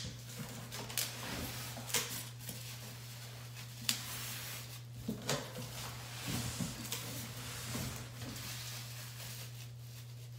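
Cardboard box flaps and plastic-wrapped flat-pack parts being handled during unboxing: scattered clicks and knocks with rustling of cardboard and wrap, over a steady low hum.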